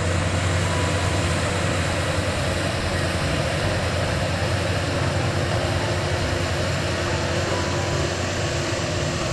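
Maxxi Bimo 102 combine harvester running steadily, a constant low engine hum under a dense mechanical rushing noise.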